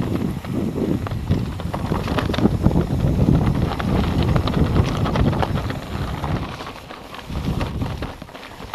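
Mountain bike riding downhill over rocky ground: wind buffeting the microphone, with the tyres crunching and the bike rattling and clicking over stones. It quietens about two-thirds of the way through.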